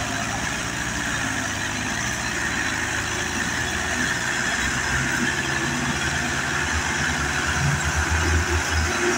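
Tractor engines working under load as two tractors hitched in tandem haul a heavily loaded sugarcane trailer; a steady engine sound whose low throb grows stronger about halfway through.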